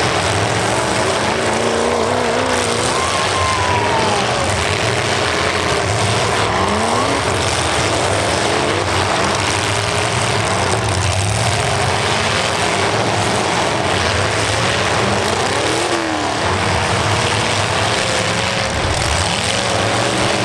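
Several demolition derby cars' engines running hard, the revs climbing and falling again and again as they drive and hit one another.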